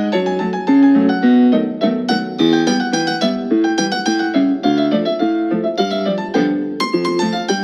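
Piano accompaniment for ballet sautés, a bright, bouncy tune with notes struck in a quick, even beat.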